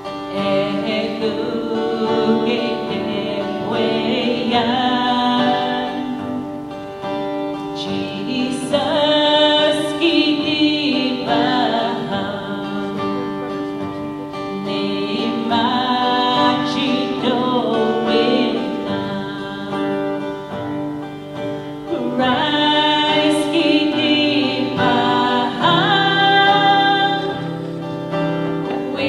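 A woman leads a small group of singers in a song in Cree, with acoustic guitar accompaniment. The voices hold long notes that swell and fall away phrase by phrase.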